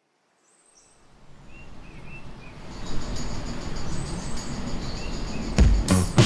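Outdoor ambience fading in with a few bird chirps, building into a rising swell of noise, with heavy hits arriving near the end as music begins.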